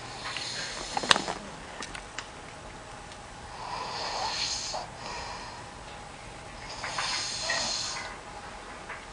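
A sleeping man snoring: two long, raspy snores about three seconds apart, with a sharp click about a second in.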